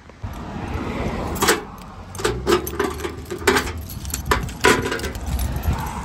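Keys jangling on a ring while a key works the lock of a small steel mailbox and the box is opened, giving a run of sharp metallic clicks and clinks.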